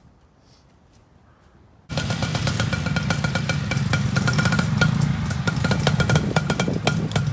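Quiet at first, then about two seconds in, trials motorcycle engines start sounding suddenly and keep running, with a dense clatter of quick ticks.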